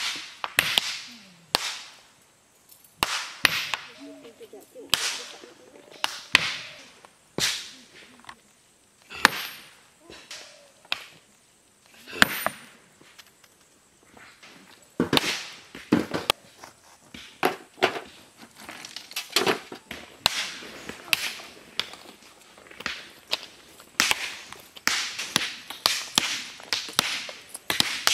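Hammers striking rock, irregular sharp cracks of stone being broken by hand. The strikes come faster and overlap in the last few seconds, as if several people are hammering at once.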